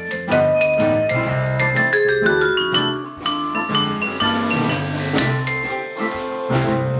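Yamaha vibraphone played with yarn mallets in a jazz improvisation: a run of struck notes that ring on, with a quick stepwise falling run about two seconds in. A low bass part sounds underneath.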